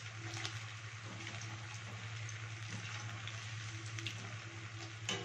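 Hot oil sizzling and bubbling steadily as maida-and-cornflour-coated cauliflower florets deep-fry in a kadai, with a few light clicks of a wire spider skimmer against the pan.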